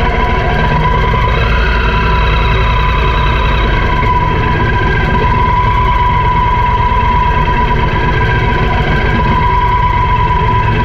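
Triumph Thunderbird LT's 1700 cc parallel-twin engine running at low revs as the motorcycle rolls at walking pace, heard close up from a camera mounted on the bike. The sound is steady, with a thin whine held through it, and the low rumble eases a little about four seconds in.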